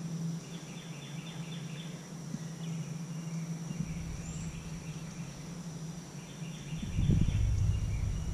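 Outdoor ambience: a bird's quick repeated chirping comes twice, over a steady high insect drone and a low hum. A low rumble swells about seven seconds in and is the loudest sound.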